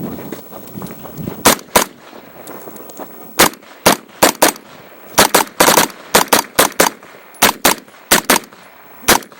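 Pistol-caliber carbine firing about eighteen shots during a practical shooting stage run, mostly in quick pairs with short pauses between target groups.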